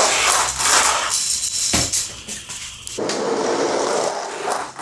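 Two Hot Wheels Monster Jam toy monster trucks rolling fast down orange plastic track and through a pair of loops: a loud rattling rumble of plastic wheels on plastic track, with one sharp clack a little under two seconds in.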